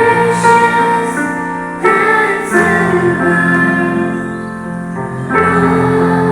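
School choir singing a prayer song with keyboard accompaniment, held chords that change every couple of seconds.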